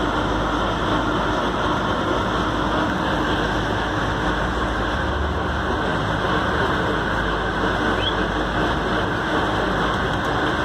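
Train running along the track, a steady rolling rumble and noise heard from inside the front of the car.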